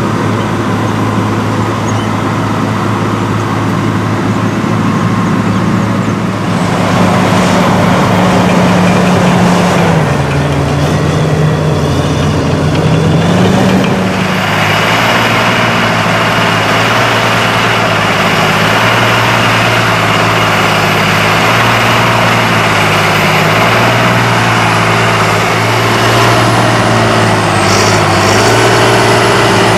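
Heavy diesel engines of a Fiat Hitachi crawler bulldozer pushing soil and a John Deere 8110 tractor pulling an earth scraper, running steadily under load. The engine note changes abruptly about six and fourteen seconds in, and dips then rises in pitch between about ten and fourteen seconds.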